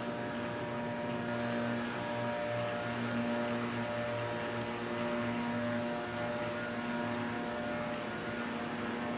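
Vehicle engine idling at a fire scene, a steady hum with several held tones that swell a little now and then.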